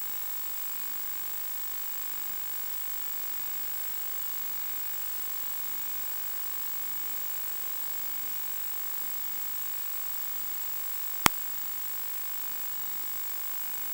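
Steady electronic hiss with a thin, constant high whine: the noise of an analog FPV video link's audio channel carrying no sound. One sharp click about eleven seconds in.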